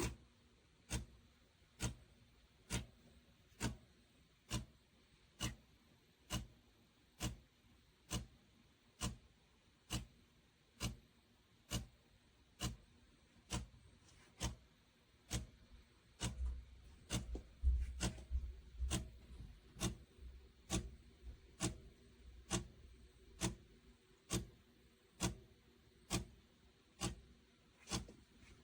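A sharp click repeating evenly, a little more than once a second, with a low rumble for a few seconds past the middle.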